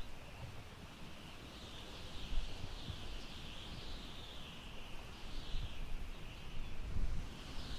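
Wind blowing through tall grass: a high rustling hiss that swells and fades with the gusts, over a low, uneven rumble of wind on the microphone.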